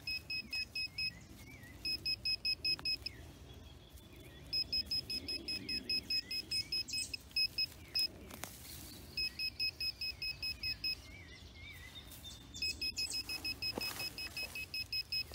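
Metal-detecting pinpointer beeping rapidly in bursts, about six or seven beeps a second, as its tip is swept over a target in the soil. The bursts start and stop several times as the probe moves on and off the metal, which turns out to be a small iron nail.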